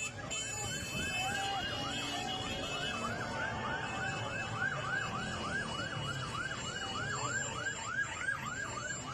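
A siren in a fast yelp, its pitch rising and falling about four times a second without a break, over the noise of a marching street crowd.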